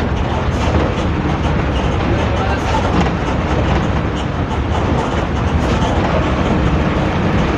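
Hino AK3-HR bus's diesel engine running under way, heard from the rear seats, with its steady, deep snoring growl ('ngorok') mixed with road rumble.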